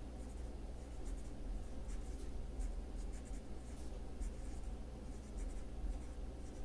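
Pencil writing on lined notebook paper: a run of short, faint, scratchy strokes as words are written out, over a steady low hum.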